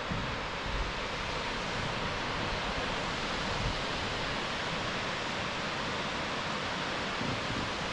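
Kirifuri Falls heard from its viewing platform: a steady, even rush of falling water.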